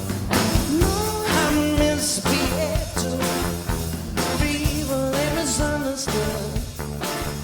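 Blues-rock music: a bass line and drums with a singing voice over them.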